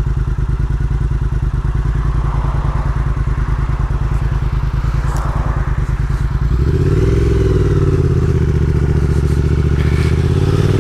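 Triumph Thruxton 1200's parallel-twin engine through Vance & Hines exhausts, idling with an even pulse. About six and a half seconds in it gets louder and climbs in pitch as the bike pulls away and accelerates.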